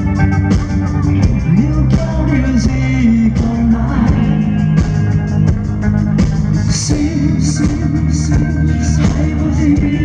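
Rock band playing live: a male singer over electric guitars, bass and a drum kit keeping a steady beat.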